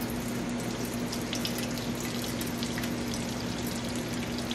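Gasoline pouring in a thin, steady stream from a disconnected fuel line into a small bucket as the snowblower's fuel tank drains.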